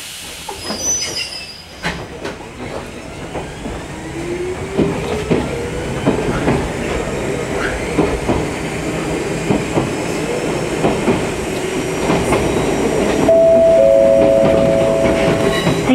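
Interior running sound of an Ichibata Electric Railway 2100-series electric train on the move: wheels clicking over rail joints under a steady rumble, with a rising whine a few seconds in. Near the end a steady two-note tone is held for about two seconds.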